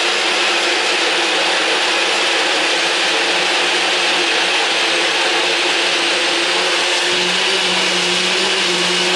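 Personal bullet-style blender running steadily, blending a thick chocolate pancake batter in its upturned cup.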